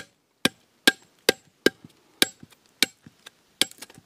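Machete blade chopping into a very hard, interlocked-grain jacarandá log: a quick run of sharp strikes, about two to three a second, the louder ones with a brief metallic ring from the blade.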